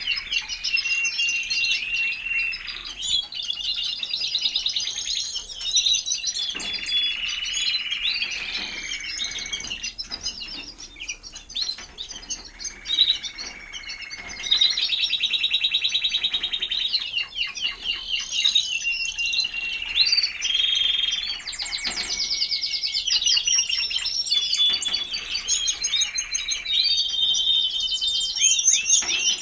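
Timbrado español canaries singing: a near-unbroken song of fast rattling trills alternating with long, steady held notes.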